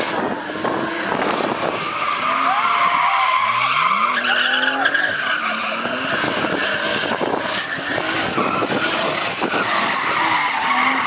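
BMW E36 3 Series doing doughnuts: its rear tyres squeal continuously while the engine revs hard, the revs rising in pitch around three to four seconds in.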